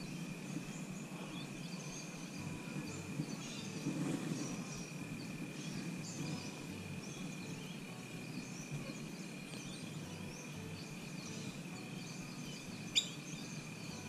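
Faint scattered bird chirps over a steady thin high tone, with one sharp click near the end.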